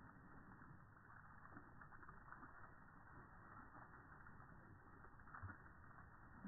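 Faint, slowed-down splashing and spattering of a garden-hose water jet against a dog's mouth as it drinks from the stream. The slow-motion playback makes it low and dull, with a soft knock about five seconds in.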